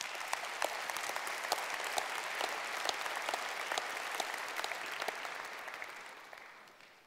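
Congregation applauding: many hands clapping together, the applause swelling quickly at the start and dying away near the end.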